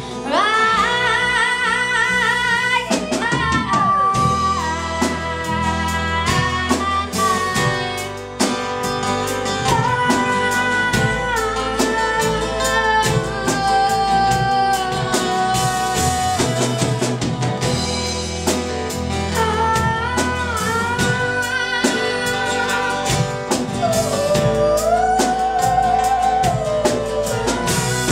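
A woman singing a song live, holding notes with a wavering vibrato, over a strummed acoustic guitar and a drum kit.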